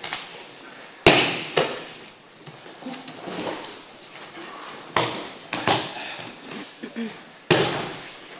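Bodies slapping and thudding onto padded mats as aikido attackers take breakfalls from throws. There are several sharp impacts, the loudest about a second in and again near the end, with lighter knocks between.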